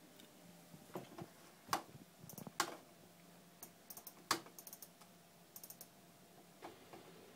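Quiet clicking at a computer: a few separate key or button taps, then quick pairs and runs of mouse clicks.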